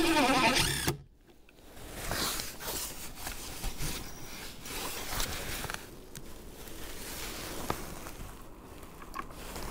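18 V cordless drill-driver driving a screw through a plastic gutter bracket into the timber fascia, its motor pitch shifting as it works and stopping abruptly about a second in. Softer scuffing and handling noises follow.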